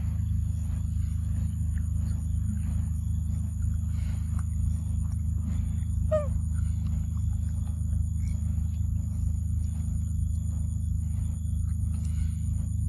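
A steady low hum throughout, with a high pulsing insect trill over it and one short falling squeak about six seconds in.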